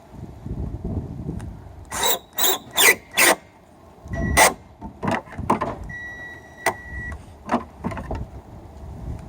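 A run of sharp knocks and clicks: four in quick succession about two seconds in, then scattered single ones. A short, steady high beep sounds about six seconds in, over a low rumble.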